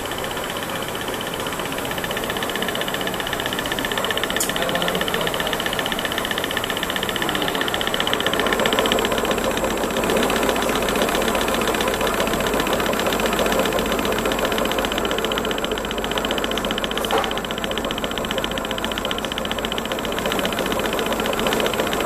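Mini thermal transfer ribbon slitting machine running, its rollers and rewind shaft turning as the ribbon is slit and wound onto paper cores: a steady mechanical hum that grows a little louder about a third of the way in. Two brief faint ticks sound, once early and once past the middle.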